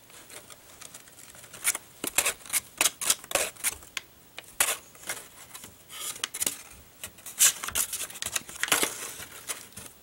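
Folded paper crinkling and rustling as it is pleated and shaped by hand: irregular crisp crackles and snaps, with a few longer rustles.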